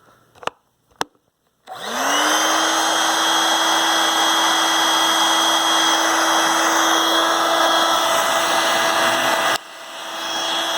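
Dirt Devil Versa stick vacuum in handheld mode: two clicks, then the motor switches on with a rising whine and settles into a steady whine over a loud rush of suction air. Near the end the air rush drops suddenly and then builds back up, as a piece of paper catches in the nozzle.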